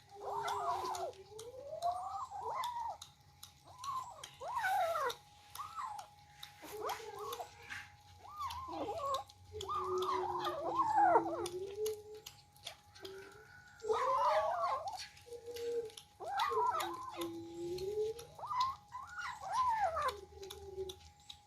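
Several young kittens meowing over and over, their high, wavering cries overlapping almost without a break as they compete over food, with small clicks of eating in between.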